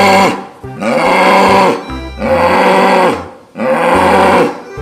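Music with a pulsing bass line and a drawn-out cow-like moo repeated about once a second, each call rising and then falling in pitch.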